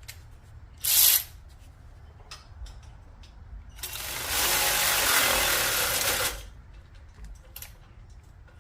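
A ratchet driving a header bolt: a short burst about a second in, then a steady run of fast ratcheting for about two and a half seconds from about four seconds in, with scattered light tool clicks.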